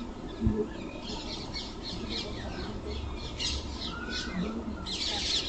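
Birds calling: a run of short, high chirps and squawks, a few a second, thickest near the end.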